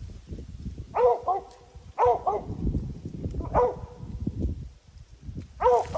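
Mountain cur barking in short barks: two quick pairs about one and two seconds in, then single barks a little after the middle and near the end, over a low rumble of wind on the microphone.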